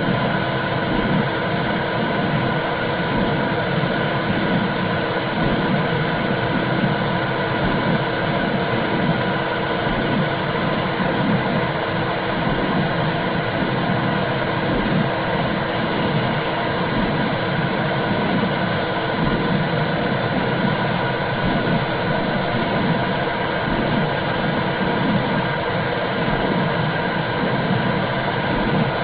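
Womb sound for soothing a baby: a steady whooshing hiss with a slow, regular low pulse running through it like a heartbeat, and a faint steady tone on top.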